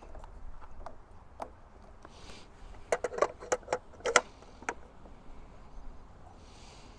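A quick run of hard plastic clicks and knocks, about eight in under two seconds, as an EV charging connector is pushed and seated into its holster. A few lighter taps come before.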